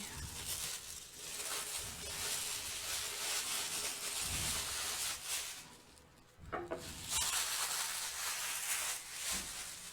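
Handling noise from assembling a table lamp: two long stretches of scraping, rustling hiss, with a short break about six seconds in.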